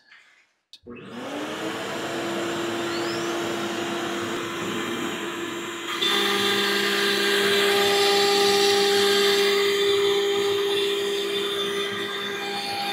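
Onefinity CNC router with its spindle and dust extraction starting up. A motor winds up to a steady whine about a second in, then the sound abruptly gets louder with a higher whine added about halfway through.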